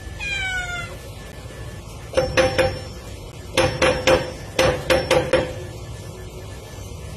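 A cat meows once, a short call falling in pitch, then paws at a padlock hanging on a metal door bolt, making the lock rattle and clank against the bolt in three quick bursts of strikes.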